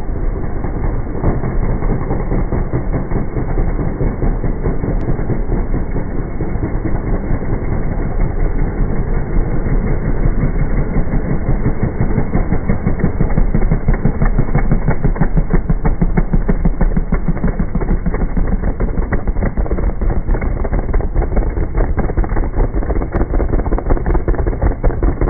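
Classic racing motorcycle engines pulling away at a race start, heard slowed right down: a loud, low, rapidly pulsing rumble with nothing high in it.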